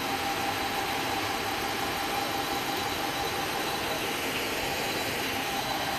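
A car engine idling steadily, a low rumble with a constant thin whine over it.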